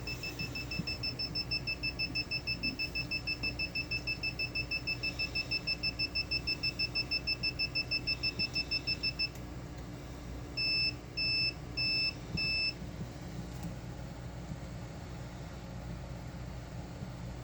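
Sump pump alarm beeping: a rapid string of short high beeps, several a second, for about nine seconds, then it stops and gives four longer beeps about half a second apart. A steady low hum runs underneath.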